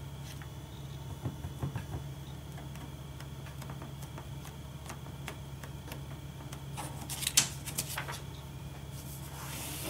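Sponge ink dauber dabbing white craft ink through a plastic circle template onto cardstock, with a few faint taps. Near the end the template is handled and peeled off the card, giving a short burst of louder crackling and rustling.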